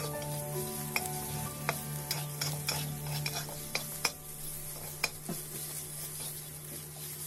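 Sliced pork and garlic sizzling in a hot black wok while a metal spatula stirs them, with sharp clinks of the spatula against the pan at irregular moments, the loudest about four and five seconds in.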